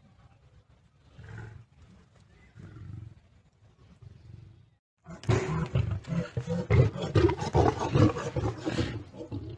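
Big cats fighting: loud, rough growling and roaring that starts abruptly about five seconds in, after a brief silence. Before that, only faint low grunts from lions.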